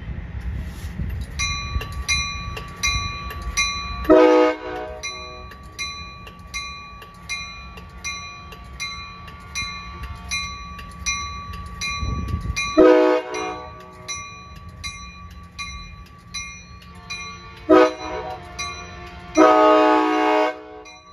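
A railroad crossing bell rings steadily at about two strikes a second while an approaching passenger train sounds its horn four times: two long blasts, a short one, then the longest, the grade-crossing horn signal. A low rumble underlies the first half.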